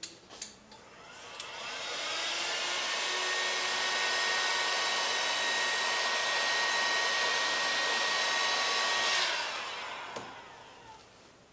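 Electric heat gun blowing: two clicks, then the fan spins up to a steady hot-air hiss with a faint whine. About nine seconds in it is switched off and winds down with a falling tone.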